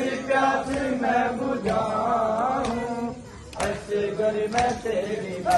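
Voices chanting a Muharram mourning lament, the voice line held and wavering. In the second half, sharp strikes land about once a second.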